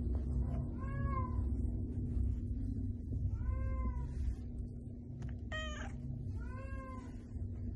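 Lynx-point cat meowing three times while her head is being stroked, each meow a short call that rises and then falls in pitch, with a brief sharper, higher sound just before the last meow. A low steady rumble runs underneath.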